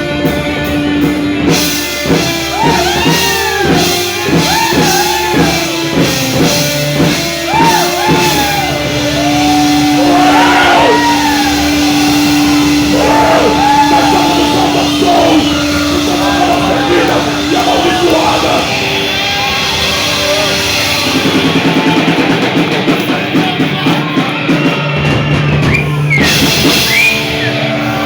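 Live rock band playing loudly with electric guitar, with shouted or sung vocals. A long held note runs through the middle, and fast repeated notes come near the end.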